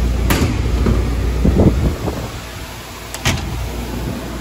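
Steady low hum of machine-shop background noise that eases off about two seconds in, with a few sharp clicks and a dull knock.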